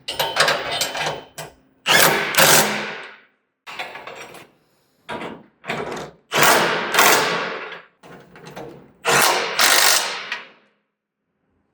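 Power tool run in about seven short bursts of up to a second and a half, with pauses between them, as parts of a sawmill bed are assembled.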